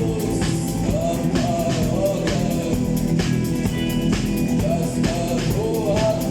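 Live rock band playing, with a singer's voice over a steady drum beat, bass and guitars.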